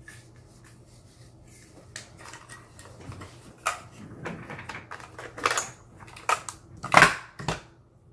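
Desk-top handling noise from an X-Acto knife box and planner paper: irregular clicks, taps and rustles that start about two seconds in, with the loudest knock shortly before the end.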